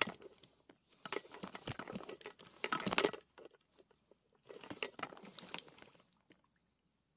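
Close crunching and rustling handling noise in three bursts as the camera is being set up, fading toward the end.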